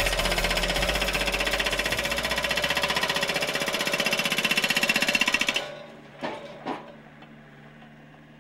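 Hydraulic hammer on a mini excavator pounding pavement with a rapid stream of chisel blows, which stop about two-thirds of the way through. After that there are two short knocks and a quieter steady hum.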